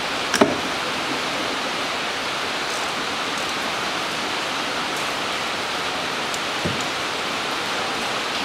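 Steady hiss of rain. A sharp click about half a second in and a duller knock later on come from hands working among the ignition coils.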